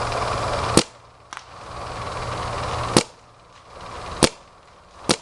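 Planet Eclipse paintball marker firing single shots: four sharp cracks spaced one to two seconds apart, with a fainter click after the first. A steady hiss stops at the first shot.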